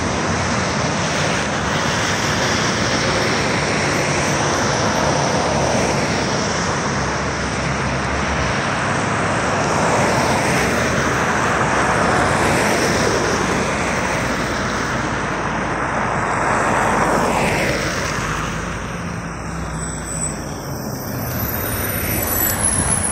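Road traffic passing on a wide, slushy city road: a steady rush of tyres and engines, with several vehicles going by close, each falling in pitch as it passes. Near the end a LiAZ 5292 city bus pulls in alongside and the sound swells again.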